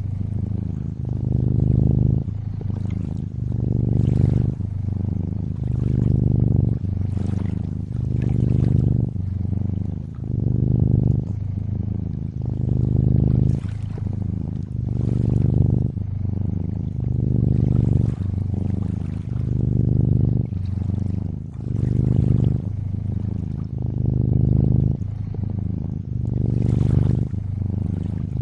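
Cat purring, swelling and easing in a steady rhythm of about one breath every two seconds, with water trickling faintly underneath.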